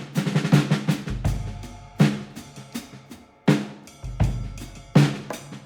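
Drums: a run of sharp drum hits with ringing tails, and two deep, long bass booms about a second and about four seconds in.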